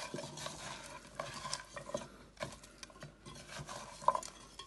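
A hand mixing raw lamb ribs with sliced onion and seasoning in an enamel pot for a marinade: irregular wet squishing and rubbing of the meat, with scattered light knocks against the pot.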